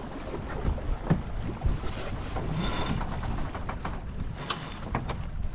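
Wind buffeting the microphone and water washing along the hull of a Fareast 28R sailing yacht under way, with scattered knocks from the deck and two short high squeaks, one about two and a half seconds in and one near four and a half seconds.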